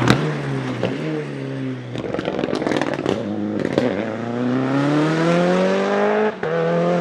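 Mitsubishi Lancer Evo VI Group A's 4G63 turbocharged four-cylinder engine at racing speed, with a sharp bang right at the start as the revs drop off on the lift. A string of cracks and pops from the anti-lag misfiring system follows about two to four seconds in. The engine then pulls up through the revs, with a brief gear-change dip about six seconds in.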